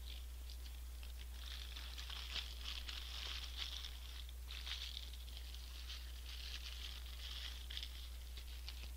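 Paper burger wrapper being crumpled and folded by hand: a continuous crinkling rustle with many small crackles, starting about a second and a half in and running until near the end.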